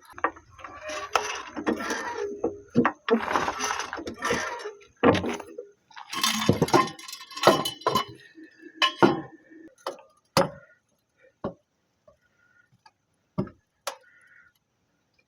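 Metal hand tools clinking and clattering, with dense rattling and sharp clanks for about the first ten seconds, then a few scattered single clicks and taps.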